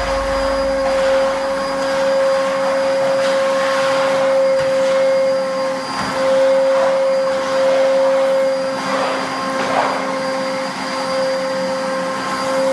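Hilti VC 20-U construction vacuum cleaner running steadily, a constant motor whine over the rush of air through the hose.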